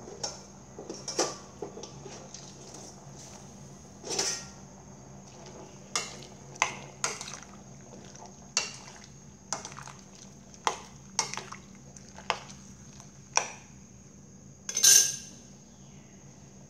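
A metal spoon clinking against a stainless steel pot while stirring vegetables and mushrooms in water: about fifteen sharp, uneven clinks, the loudest near the end. A steady faint high whine runs underneath.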